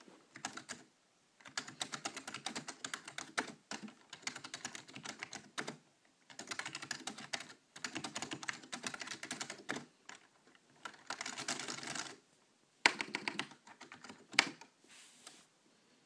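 Typing on a Matias Quiet Pro mechanical keyboard with non-clicky Alps-style switches: runs of quick keystrokes a few seconds long with short pauses between. Two single strokes near the end stand out louder.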